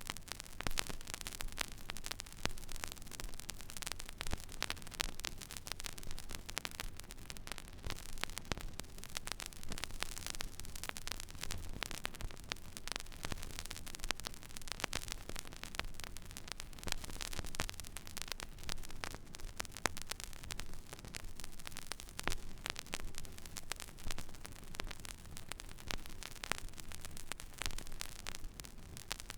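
Stylus riding an empty vinyl record groove: a steady surface hiss with dense crackle and pops, over a low hum.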